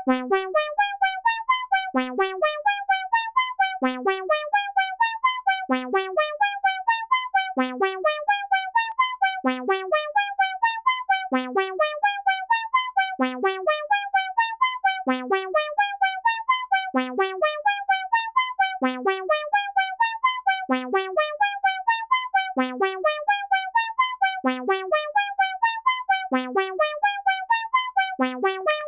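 Behringer System 100 analog modular synthesizer playing a brassy arpeggio in a fast run of short notes. The phrase repeats about every two seconds, each time starting on a low note.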